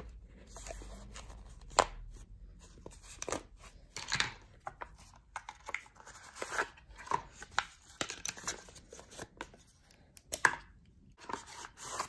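Paperboard brush boxes being handled as acrylic brushes are slid out of their packaging: an irregular run of light scrapes, rustles and taps of cardboard.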